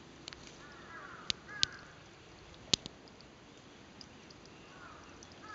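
A crow caws in short bouts of arched calls: near the start, again a second or so later, and once more near the end. A few sharp clicks cut through, the loudest one about midway.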